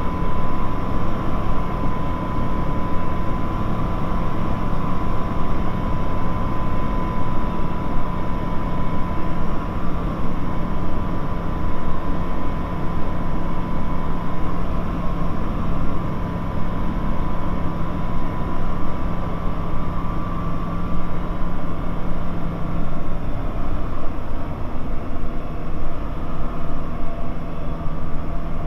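Bristell light aircraft's engine and propeller droning steadily, heard inside the cockpit. Near the end the drone settles a little lower in pitch.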